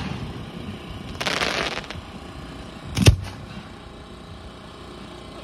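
Professional aerial display shell fireworks: a brief hiss, then about three seconds in a single sharp boom with a short low rumble after it.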